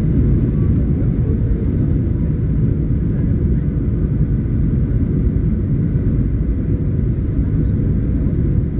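Cabin noise inside a Boeing 737-800 on approach to land: the CFM56-7B turbofan engines and rushing air make a steady, loud low rumble, with a faint steady hum above it.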